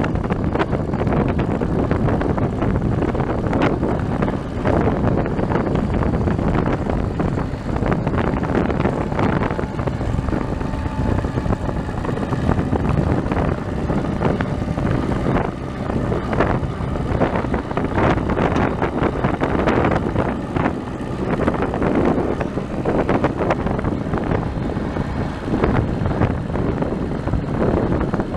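International 544 tractor's four-cylinder gasoline engine running steadily as the tractor pulls a six-foot King Cutter rotary mower through grass.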